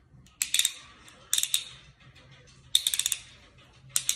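Plastic Beyblade gear ratcheting: four short runs of rapid clicks.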